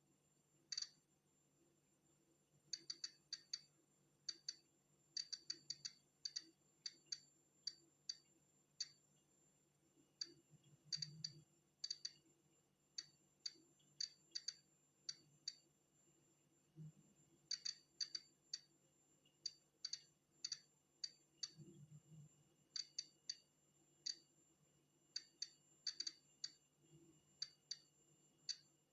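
Polon EKO-C digital Geiger counter clicking at natural background radiation. Short, sharp clicks come at random, irregular intervals, sometimes bunched in quick runs and sometimes with gaps of a second or two.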